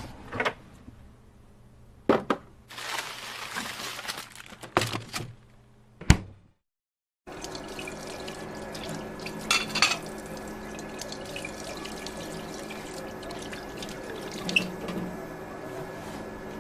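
Foley sound effects: a few sharp clicks and knocks with a rushing, water-like noise in between, then after a brief silence a steady background ambience with a low hum and a couple of soft knocks.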